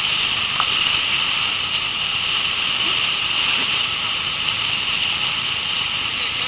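Steady rushing of whitewater rapids.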